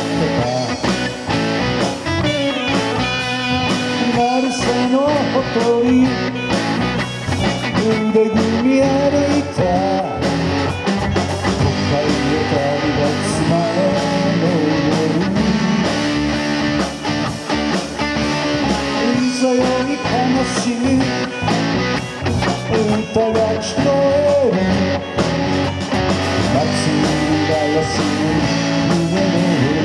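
Live rock band playing a song, amplified through the stage PA: drum kit, electric and acoustic guitars and keyboard, with a wavering melody line carried over the top.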